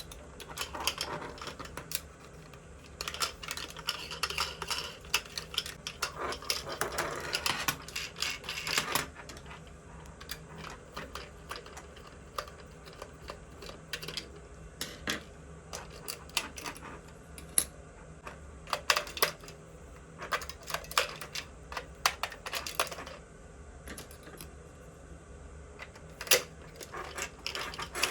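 Small hard plastic toy parts being handled, giving many sharp clicks and taps, with a denser rustling stretch in the first third.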